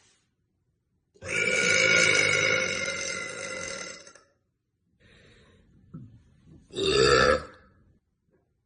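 A woman burping: one long burp of about three seconds with a slightly falling pitch, then a second, shorter burp a few seconds later.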